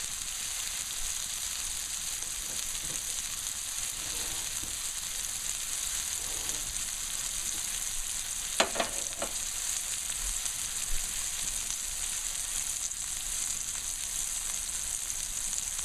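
Ground-beef hamburger patties frying in a hot pan, a steady high sizzle, with a couple of short sharp pops about eight and a half seconds in.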